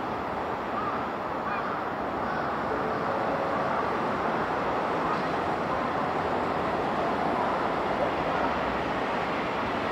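Approaching trains on an elevated multi-track line: a steady, even rumble of wheels on rail that grows slowly louder, over the noise of the surrounding city.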